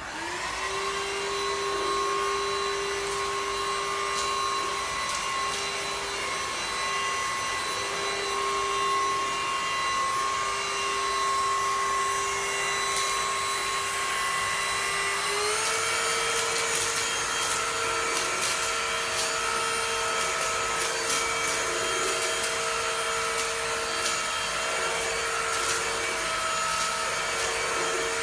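TINTON LIFE cordless stick vacuum cleaner (MD1601) running with a steady motor whine. Its pitch steps up about halfway through as it is switched to a higher power setting, and it winds down as it is switched off at the end. Scattered ticks and rattles come from coffee beans being sucked up.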